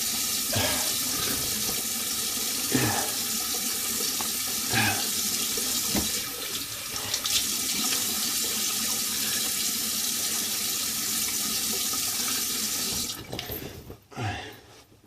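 Bathroom sink tap running steadily while the face is rinsed after a shave. The water shuts off about two seconds before the end.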